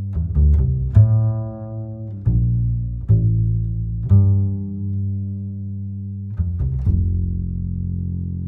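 Background music: slow, low plucked string notes, each struck sharply and left to ring, with the last note fading away near the end.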